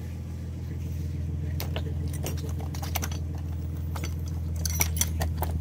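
Small metal carburetor parts clicking and clinking as they are handled and fitted together, with a quick cluster of clinks near the end, over a steady low hum.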